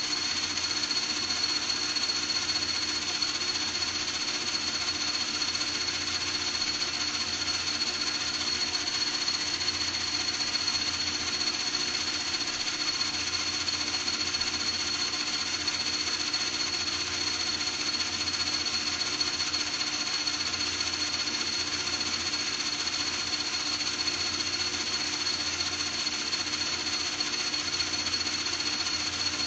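A small motor running steadily with a high whine and a low hum, never changing speed.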